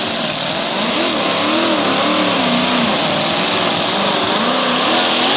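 V8 engine of the Excalibur pulling pick-up running flat out under load on a tractor-pulling run. Its revs waver up and down over a loud, dense exhaust noise.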